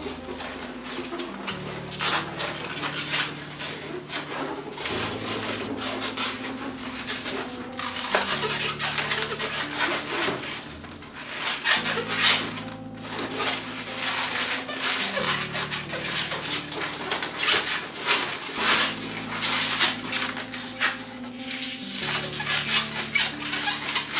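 Modelling balloons (twisted latex) rubbing and squeaking against each other as they are handled and fitted into place, in many quick scratchy strokes. Under them is background music with sustained chords that change every three seconds or so.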